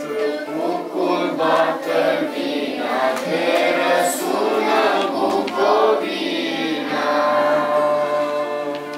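A group of children singing a song together, accompanied by an acoustic guitar.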